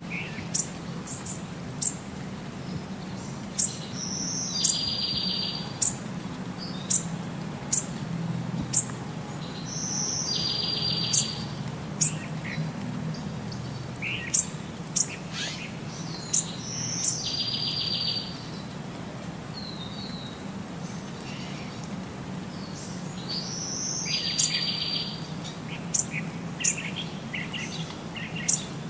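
Birds chirping and singing: short, sharp high whistles and chirps, with a buzzy trill phrase that comes back about every six or seven seconds, over a steady low background hum.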